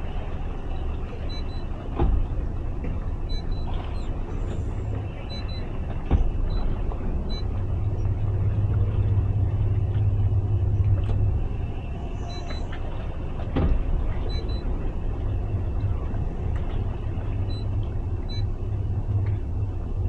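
Twin outboard motors running at low speed while the boat manoeuvres, a steady low rumble that swells for a few seconds midway. A few sharp knocks stand out, about 2, 6 and 13 seconds in.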